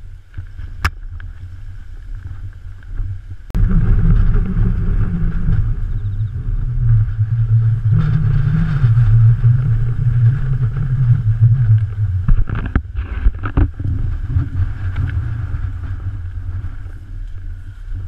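Strong typhoon wind buffeting the camera microphone: a gusting low rumble that jumps up sharply about three and a half seconds in and keeps surging. A few sharp clicks come through near the start and again around the middle.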